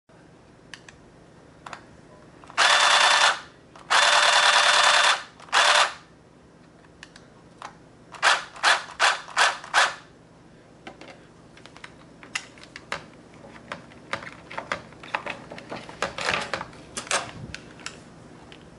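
Modified Nerf Rapidstrike blaster's electric motors running in three short steady spin-ups, each with a steady whine, a few seconds in. About halfway through come five quick short motor pulses. Then there are many light mechanical clicks from switches and handling.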